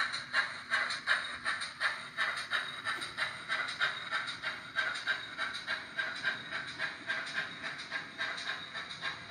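OO gauge model steam-hauled freight train running slowly by, making a steady, even beat of short hissy pulses about three times a second that grows a little quieter near the end.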